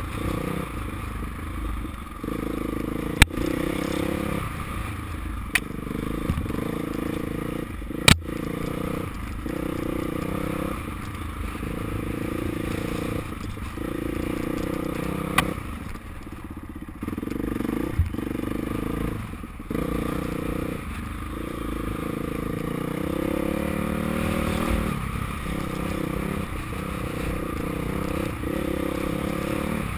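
KTM dirt bike's single-cylinder four-stroke engine running on a trail ride, its note rising and falling every second or two as the throttle opens and closes. A few sharp knocks cut through it, the loudest about eight seconds in.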